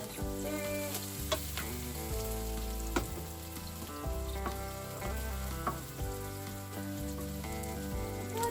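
Onion and garlic sizzling as they fry in hot olive oil, stirred in the pan with a couple of sharp clicks of the utensil, under background music.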